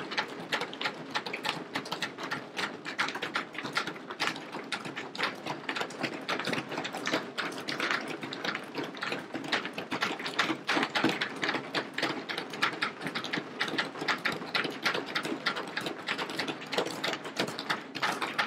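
Many legislators thumping their desks in applause: a dense, unbroken patter of knocks that goes on without a pause.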